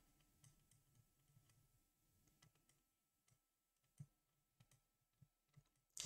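Near silence with faint, scattered clicks of a digital pen tapping and writing on a screen, one slightly louder click about four seconds in.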